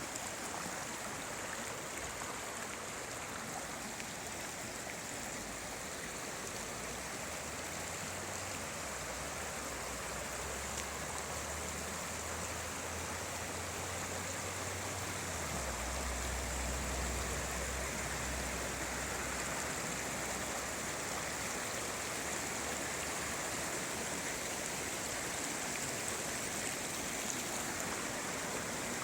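River water rushing steadily. A low rumble sits underneath for several seconds in the middle.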